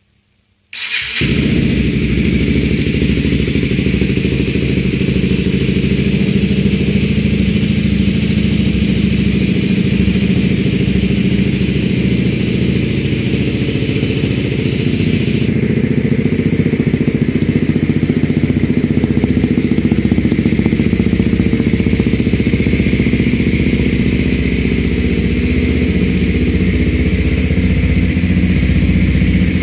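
Kawasaki Ninja 250RR Mono's single-cylinder engine, breathing through a Yoshimura R-77D slip-on exhaust, starts up suddenly about a second in and then idles steadily.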